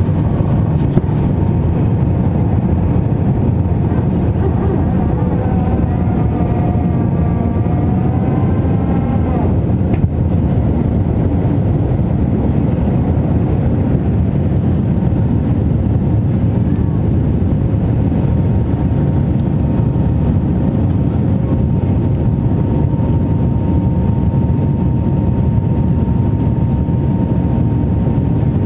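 Airliner engines running, heard from inside the cabin as a steady, loud rumble with a faint steady whine above it.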